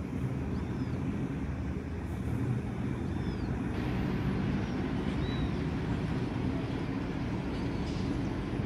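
Distant Boeing 737 jet airliner on approach, heard as a steady low rumble, with a few short high bird chirps over it.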